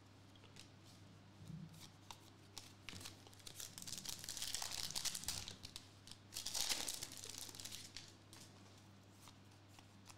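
Foil wrapper of a Donruss Elite trading card pack being torn open and crinkled, in two stretches of crackling about three and six seconds in.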